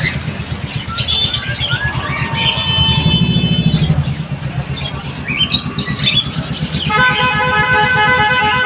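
Busy street traffic with a motor vehicle engine running, small birds chirping, and a vehicle horn sounding in rapid pulses for the last couple of seconds.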